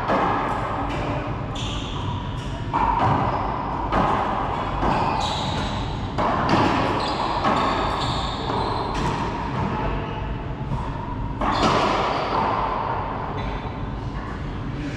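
Racquetball rally: sharp cracks of the ball off racquet strings and the court walls, roughly one a second, ringing in the echoing enclosed court.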